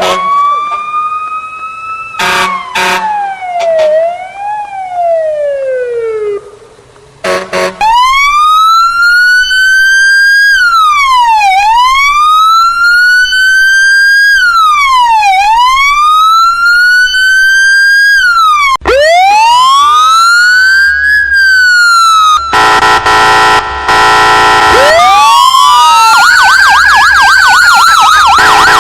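Emergency-vehicle sirens in turn. First a siren glides down in pitch, broken by short horn blasts. Then a slow wail rises and falls about every four seconds, a run of fast sweeps follows past the middle, and near the end a wail sounds over a steady blaring horn.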